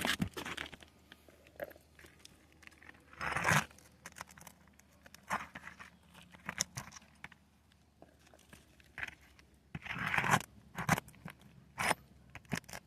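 Brittle asphalt roofing shingles crunching and scraping as their nails are pried loose with a hand tool, in irregular bursts with short clicks and knocks. The loudest bursts come twice, a few seconds in and near the end.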